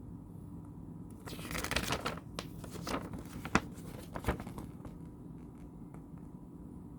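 Paper packaging handled: rustling and crinkling for about three seconds, with a few sharp clicks, the loudest about halfway through.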